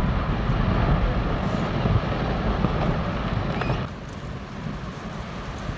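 Low rumbling crash of glacier ice collapsing into the sea and the wave it raises. It drops off sharply about four seconds in.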